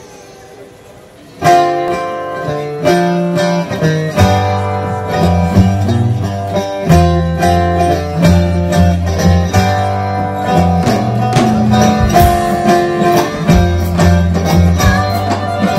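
Live blues band starting a song: an electric guitar begins the intro about a second and a half in. A double bass joins a few seconds later with steady low notes, and drums are heard, their cymbals coming in more plainly in the second half.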